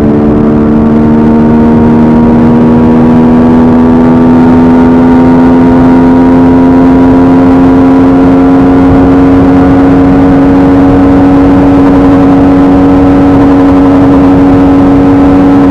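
Yamaha R15M's 155 cc single-cylinder engine, breathing through a high-performance air filter, running at high revs with a loud steady drone whose pitch climbs slowly throughout.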